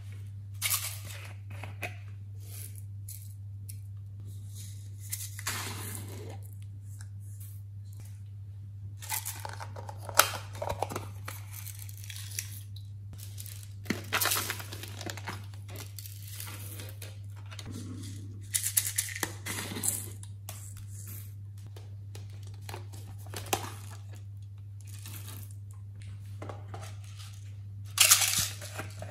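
Hands handling slime-making materials and squishy toy moulds, with irregular crackling, crinkling and peeling noises in scattered bursts. The sharpest come about ten seconds in and near the end, over a steady low hum.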